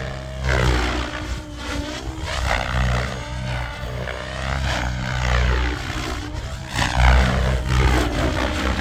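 Specter V2 NME electric RC helicopter in flight, its rotor and motor sound swelling and fading as it makes repeated passes and manoeuvres.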